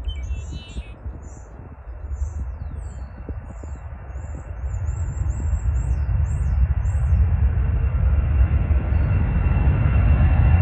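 Jet aircraft engines rumbling and growing steadily louder as the plane approaches, the hiss rising along with the rumble. Small birds chirp high above it for most of the first seven seconds.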